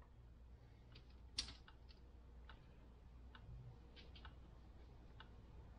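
Near silence with faint scattered ticks and light taps, one a little louder about a second and a half in, as biscuit-dough pieces are dredged by hand in flour on aluminium foil.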